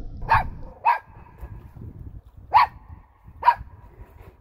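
A small dog barking four times: two quick sharp barks, a pause, then two more.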